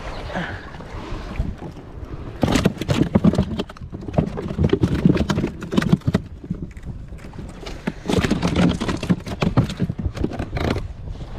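Rapid, irregular knocking and clattering in two spells, starting about two and a half seconds in and again about eight seconds in, from fishing gear being handled against the inflatable boat, over a low rumble of wind.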